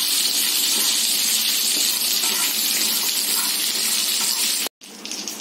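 Steady frying sizzle from pans on a gas stove, with a spatula stirring groundnuts, poppy seeds and spices as they dry-roast in a nonstick pan. The sound cuts out abruptly near the end.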